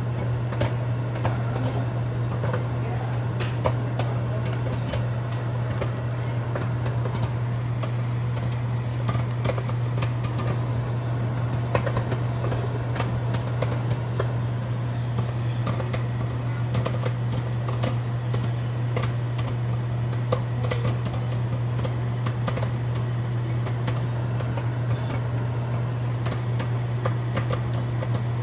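A microwave oven runs with a steady low hum while popcorn pops inside it in many quick, irregular pops.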